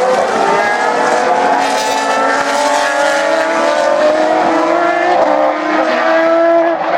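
Single-seater racing car engines running at high revs, more than one car at once. The pitch climbs steadily, steps up about five seconds in, then drops sharply near the end as a gear changes.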